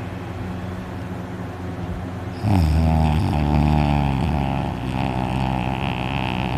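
A man snoring loudly in his sleep: a loud snore starts about two and a half seconds in and falls in pitch, over a steady low hum.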